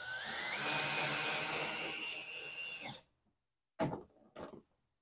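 Cordless drill driving a screw through an L-bracket into the divider pole: the motor whine rises in pitch as it spins up, holds steady for about three seconds and cuts off suddenly. Two short knocks follow near the end.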